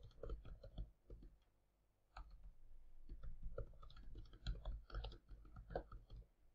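Faint, irregular keystrokes on a computer keyboard as a sentence is typed. A short run of taps comes first, then a pause of about a second, then a longer run of typing.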